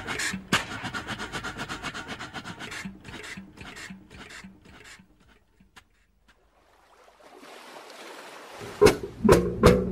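Old boat engine with a large flywheel running with a rapid, even beat that slows and fades away over about five seconds. Near silence follows, and music starts near the end.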